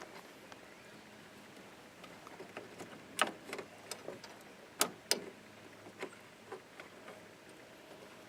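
Scattered sharp clicks and taps of fingers working at the plastic clip that holds the hood latch's release cable, the loudest a little past three seconds in and twice near the five-second mark.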